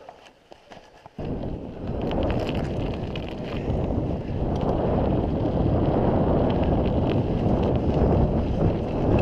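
Mountain bike ridden over a rough, cracked track: a steady rush of wind on the camera microphone mixed with tyre rumble, and light rattling clicks from the bike. It starts suddenly about a second in, after a few faint clicks.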